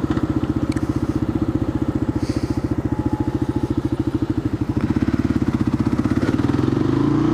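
Kawasaki KLR650's single-cylinder four-stroke engine running at low revs with an even, rapid pulse, then rising in pitch near the end as it accelerates.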